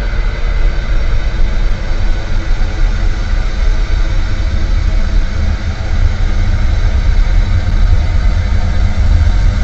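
Ambient noise music: a loud, steady drone of deep rumble under a dense hiss, with a few faint held tones.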